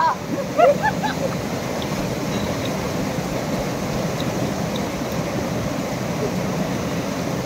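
Steady rushing of a stream flowing over rocks, with a few short voice sounds in the first second.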